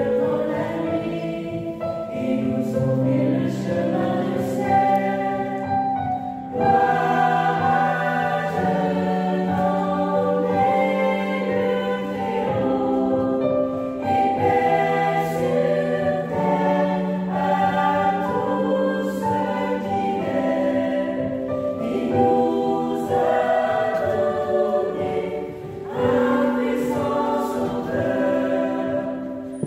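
Mixed choir of men and women singing a hymn in several parts, in long held phrases with brief breaths between them.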